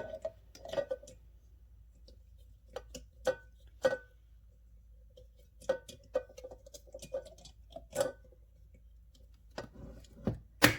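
Irregular light clicks and knocks from small hard parts being handled and fitted into place, about a dozen in all. Some give a brief ring.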